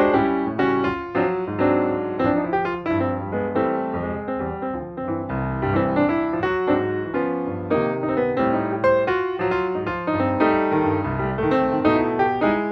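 Background music played on piano, a steady run of notes throughout.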